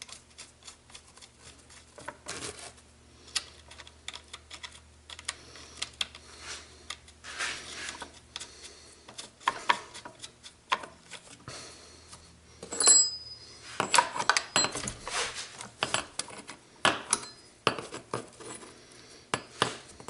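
Chainsaw parts being handled and fitted by hand, with irregular metal clicks, rattles and clinks as the bar, chain and nuts are set in place. About 13 seconds in comes one sharper clink that rings briefly.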